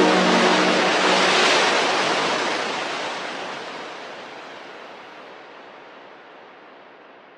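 A wash of rushing noise, like surf, that swells about a second and a half in and then slowly fades away, as the last held notes of background music die out at the start.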